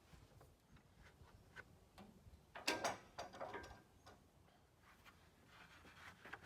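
Faint scattered clicks and knocks, with a short burst of louder rattling knocks about three seconds in.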